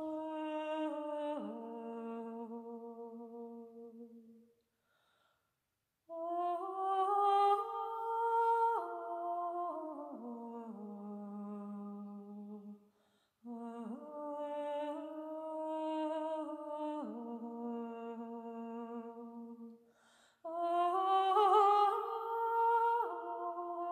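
A woman's voice singing a slow, wordless melody in long held notes that step up and down, in four phrases separated by brief pauses.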